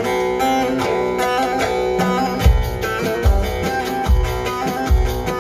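Live Turkish folk music, instrumental with no singing: a plucked lute plays a quick melody. About halfway through, a deep drum beat comes in, a little more than one beat a second.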